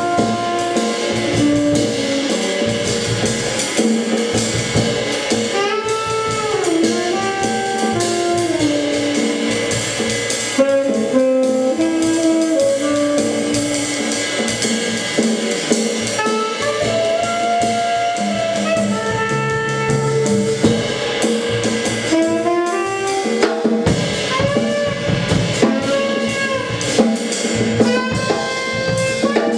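Tenor saxophone and drum kit playing jazz live: the saxophone plays a melody of held notes with slides and bends in pitch, over cymbals and drums struck throughout.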